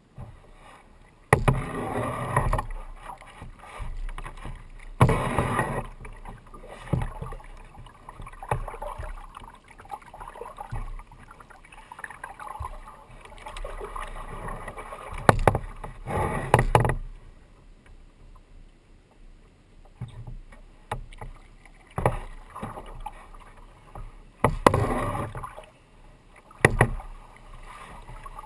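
Kayak paddle strokes: a double-bladed paddle dipping and splashing into calm water, a stroke or a pair of strokes every few seconds, with softer water sounds between them.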